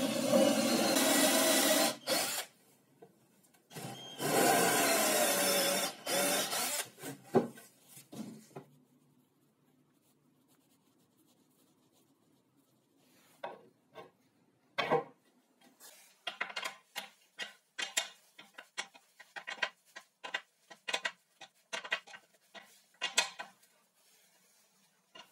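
Cordless drill-driver running in two bursts of about two seconds, driving screws into a laminated chipboard panel. After a quiet spell, a long string of light metal clicks and taps as a small wrench turns a bolt through the chipboard side.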